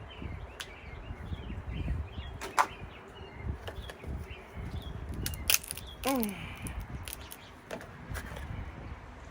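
Blue crab shells cracking and snapping as they are broken open and picked apart for eating, with sharp clicks scattered irregularly through. A short falling hum comes about six seconds in.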